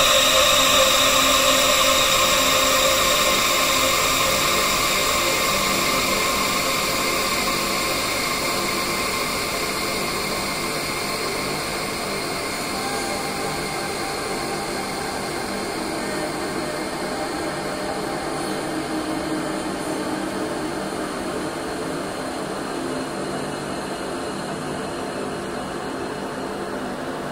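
Thick, noisy ambient drone from an experimental electronic track's intro, with many held tones layered in a steady wash that slowly grows quieter. A new held note enters about halfway through.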